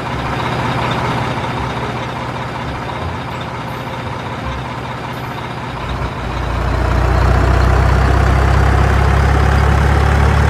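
Heavy vehicle engine running steadily, growing louder about six and a half seconds in.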